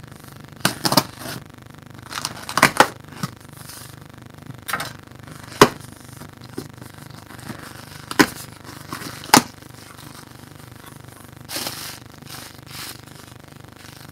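Cardboard shipping box being opened by hand: a serrated knife cutting through the packing tape, then the flaps pulled open and plastic packing rustled. Scattered sharp clicks and several louder knocks of knife and hands against the cardboard, with a rustling stretch near the end.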